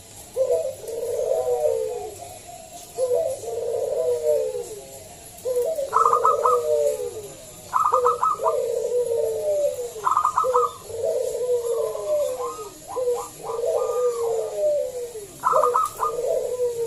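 Native Indonesian zebra dove (perkutut lokal) singing its loud cooing song, a phrase about every two seconds. Several phrases open with a quick run of higher clipped notes before the cooing.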